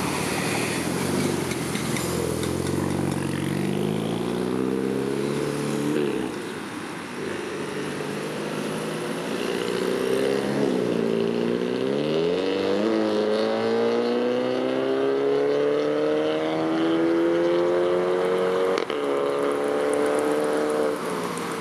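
Twin-charged Audi A1 1.4 TFSI four-cylinder running through a full aftermarket exhaust as the car accelerates away. The exhaust note climbs in pitch and falls back at each of several gear changes.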